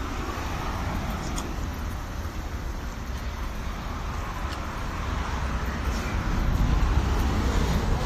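Street traffic: a steady noise of passing cars, growing louder over the last few seconds.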